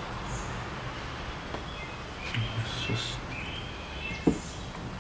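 A single sharp metal clink about four seconds in, as the gear cluster in the opened Tecumseh Peerless 5-speed transaxle is handled, over a steady background hum. A bird chirps a few times near the middle.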